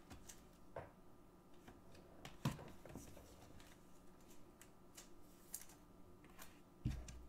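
Faint, scattered clicks and taps of a rigid plastic card holder being closed and set down on a desk. The sharpest click comes about two and a half seconds in, and a soft thump follows near the end.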